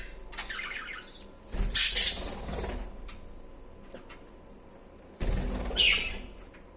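Pet budgerigars chirping in two short bursts about a second long, the first near two seconds in and the second about five seconds in.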